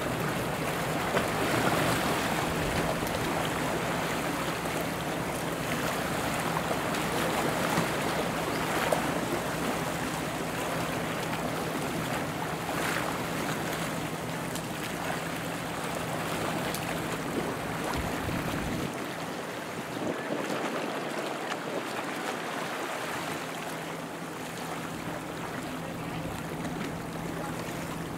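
Harbor water washing against the rocks at the foot of a seawall, a steady wash of noise, over a steady low hum.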